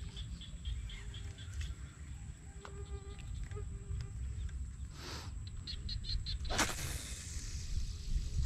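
Wetland ambience: a steady high-pitched insect drone with a rapid chirping call, about six chirps a second, heard at the start and again later, over a low rumble of wind on the microphone. There are two short rushing noises, about five and six and a half seconds in.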